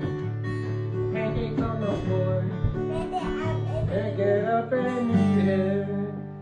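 Acoustic guitar strummed in chords with a voice singing over it from about a second in. Near the end the guitar settles on a held low chord that fades out.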